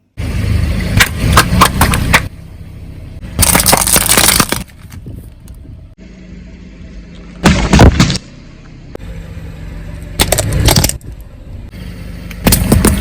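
Crunching and cracking as objects are crushed under a car's tyres: five loud bursts a few seconds apart, with the car's low engine hum between them.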